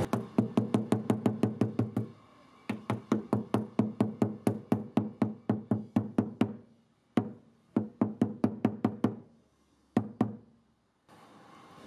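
Rubber mallet tapping along a glue-filled split in a wooden cabinet side panel, knocking the crack closed. Quick runs of sharp knocks, about seven a second, broken by short pauses, ending with a brief burst of a few taps near the end.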